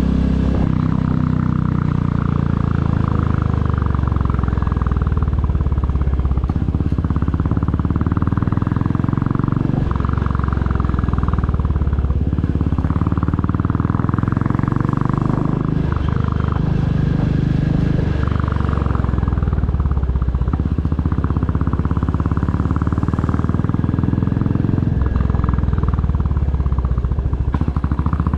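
2022 Royal Enfield Classic 350's 349 cc single-cylinder engine and exhaust running under way. The exhaust note drops and climbs again several times as the throttle and gears change.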